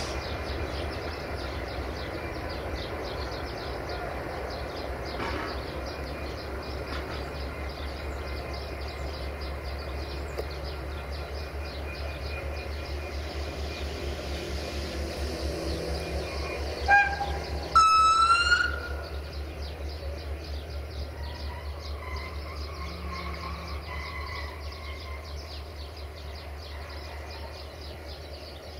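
Diesel locomotive running at low speed at the head of a passenger train, its engine giving a steady low throb. About 17 seconds in, the locomotive's horn gives a short toot and then a louder blast of under a second.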